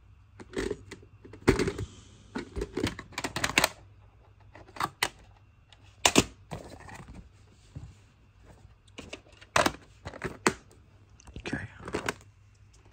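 Plastic VHS clamshell cases being handled: irregular clicks, taps and short rattles as tapes are picked up and set down.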